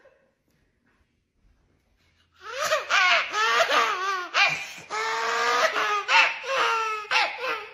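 A woman's loud, wordless vocalizing in a string of wavering, drawn-out cries with one longer held note, starting after about two seconds of near silence.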